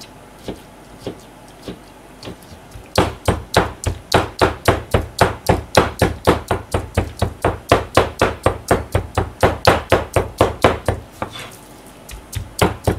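Kitchen knife mincing raw chicken on a plastic cutting board. A few spaced chops give way to a steady run of rapid chops, about four a second, which pause briefly near the end and then resume. The meat is being chopped fine into mince for chicken meatballs.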